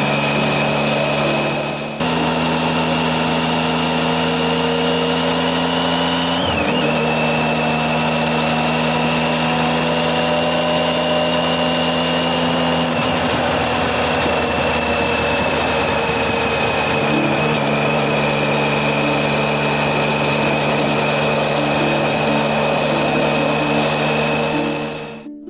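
Triumph Tiger 800XC's three-cylinder engine running at steady cruising revs while the bike is ridden, with a steady high whine over the engine note. The note changes abruptly a few times.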